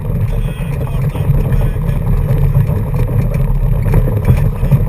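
Car engine and tyre noise inside the cabin while driving along a rough dirt track: a steady low rumble.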